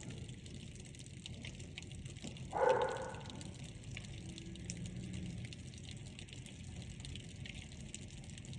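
Rain and small hailstones pattering steadily, a hiss with many scattered sharp ticks. A short voice-like sound stands out about two and a half seconds in.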